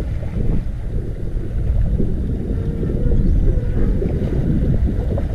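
Fishing boat at sea: a steady low rumble of the boat and water, with wind buffeting the microphone.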